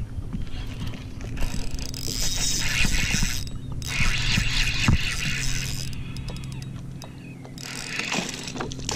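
Shimano Sahara spinning reel being cranked in three spells, its gears whirring as line is wound in, over a steady low hum.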